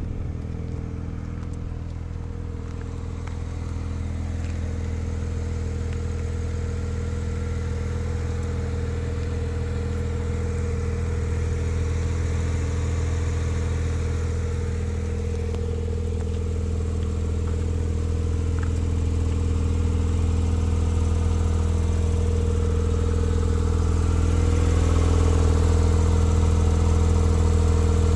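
Porsche 911 Carrera 4 Cabriolet's flat-six engine idling steadily, growing gradually louder.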